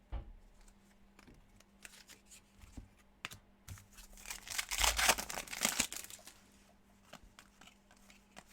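A trading card pack's foil wrapper is torn open and crinkled, loudest about halfway through, with scattered small clicks from cards being handled before and after.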